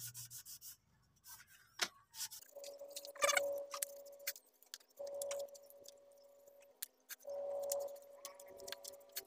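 A cloth rag rubbing and wiping small pieces of inner-tube rubber on a wooden bench: quick rubbing strokes at first, then soft handling with scattered light clicks and ticks. A steady humming tone comes and goes three times in the background, about two seconds at a time.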